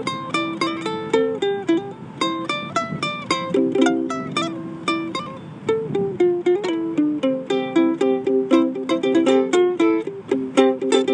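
Acoustic plucked string instrument played solo: a quick run of picked notes and strums with no singing, an instrumental passage in a song.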